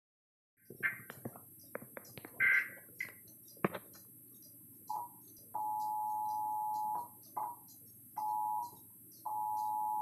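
Glitching Emergency Alert System broadcast through a TV speaker: a few short warbling bursts of the SAME data header among sharp clicks, then the two-tone EAS attention signal cutting in and out in broken pieces, the longest about a second and a half.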